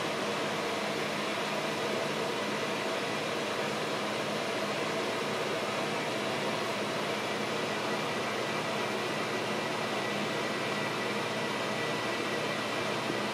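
Steady, even hum and hiss, with no distinct taps or knocks.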